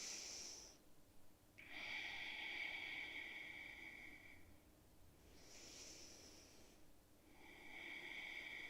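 A person breathing slowly and audibly through the nose, about two breath cycles. Each is a short, higher hiss followed by a longer, throatier exhale of a few seconds.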